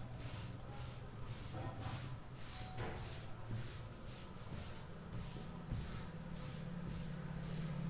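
Rhythmic scratching strokes, about two a second, over a steady low hum.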